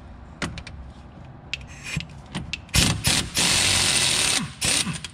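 Pneumatic wrench running on the bottom nut of a front stabilizer (sway bar) link to loosen it. After a few light tool clicks, it runs in two short bursts, then steadily for about a second, then in one more short burst near the end.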